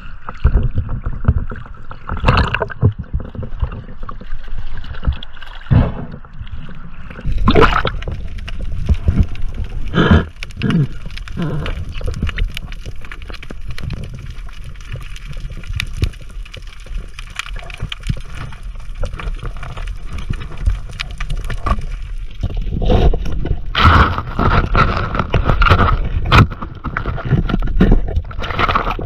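Water sloshing and gurgling around a diver's camera at the surface, then muffled underwater noise with bubbling and many short knocks as the diver goes down to a rocky ledge. A cluster of louder bursts comes near the end.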